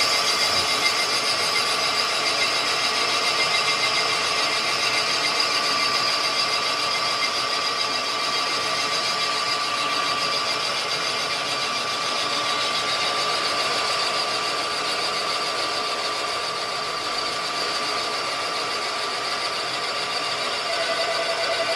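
Cylinder boring bar running, cutting a cylinder bore in a Chevy small-block V8 block: a steady machine sound holding a few high, even tones.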